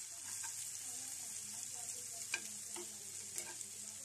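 Minced garlic sizzling in melted butter as it is lightly browned, with a metal spoon stirring it around the pan. The sizzle is a steady hiss, broken by a couple of sharper clicks.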